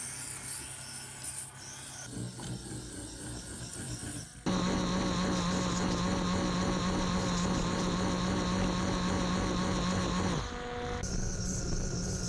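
Small electric motor of a micro RC car running with a steady buzzing whine. The whine comes in abruptly about four seconds in, holds steady, then slides down in pitch about ten seconds in before a different steady hum takes over.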